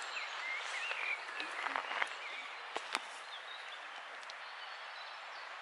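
Outdoor ambience: a steady soft hiss, with a bird twittering during the first two seconds and a few faint clicks.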